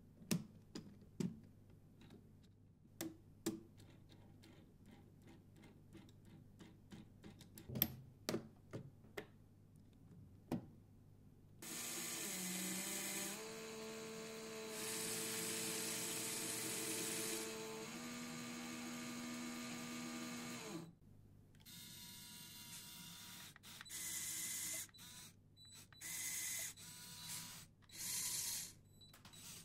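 Lego Technic plastic parts clicking and knocking as the car's chassis and steering are worked by hand. About twelve seconds in, a small electric Lego motor runs steadily through its gears with a whine that shifts pitch twice, stopping after about nine seconds. Near the end come several short bursts of the motor as the car is driven in stop-start moves.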